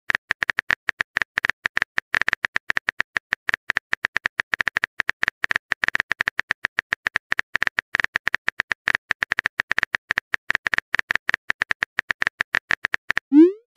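Phone keyboard keypress clicks from a texting-story app, ticking in a fast, even stream as a message is typed out letter by letter.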